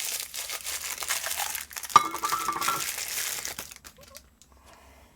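Plastic packaging crinkling and crackling as a solder tip cleaner is worked out of it, with a sharp knock about two seconds in followed by a short ringing tone; it goes much quieter about three and a half seconds in.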